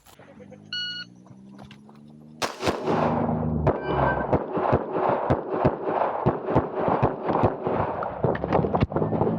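A shot timer beeps once, then about a second and a half later a Glock 26 9mm pistol opens fire in rapid strings of shots, several a second, as a USPSA stage is shot. Background music plays underneath.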